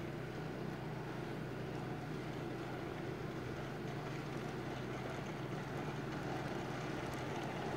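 Steady outdoor background rumble with a constant low hum underneath and no distinct events.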